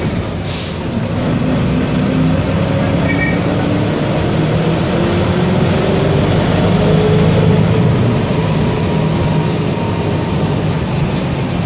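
Diesel engine of a VW 15-190 EOD city bus running under way, its note rising steadily for several seconds as the bus accelerates, then levelling off.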